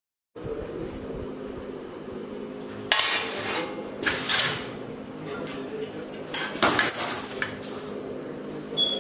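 Automated part-inspection machine running with a steady hum, broken by several sharp metallic clacks from its conveyor and ejection mechanism, a few of them bunched together about two thirds of the way through. A short high beep near the end.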